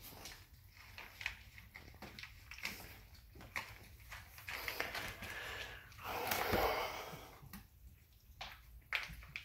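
Puppies eating and snuffling at a food dish, with many small scattered clicks and a louder rush of noise about six seconds in.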